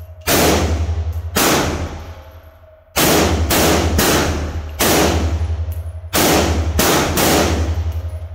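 Rapid semi-automatic shots from a 7.5-inch-barrel AR pistol in .300 Blackout, about ten in all, echoing in an indoor range: two shots, a pause of about a second and a half, then a quicker string roughly half a second apart. A steady low hum runs underneath.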